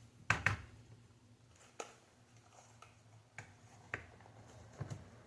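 Parts of an Xbox Series S console clicking and knocking as they are handled and fitted back together. A sharp double knock comes just after the start, then single clicks spaced out every second or so.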